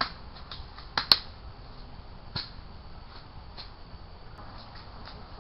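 Airsoft guns firing: sharp single snaps at irregular intervals. A pair comes about a second in and is the loudest, another follows a little later, and fainter clicks come after.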